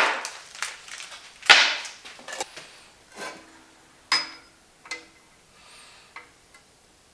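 Tools and parts being handled on a workbench: a string of scattered knocks and clicks, the loudest about one and a half seconds in, and one about four seconds in that rings briefly.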